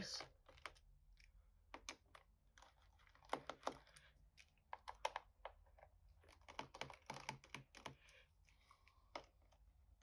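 Faint, irregular clicks and ticks, some in small clusters, of a screwdriver turning and loosening the captive screws in a laptop's base cover.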